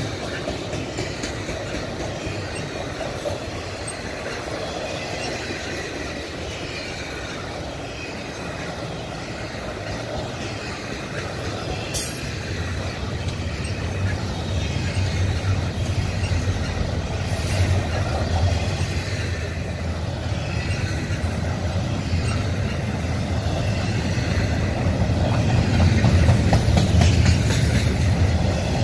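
Double-stack intermodal container well cars rolling past: a continuous rumble and clatter of steel wheels on rail, getting louder toward the end, with one sharp click about twelve seconds in.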